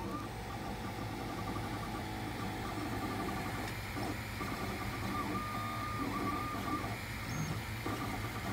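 Monoprice Maker Select Plus 3D printer printing: its stepper motors whine in short tones that rise and fall as the print head moves, over the steady hum of its fans.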